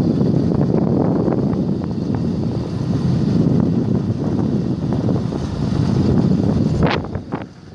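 Wind buffeting the microphone of a moving Yamaha R15 sport motorcycle, with the bike running underneath in a steady, dense rush. About seven seconds in the rush drops away sharply, leaving a few short sharp ticks.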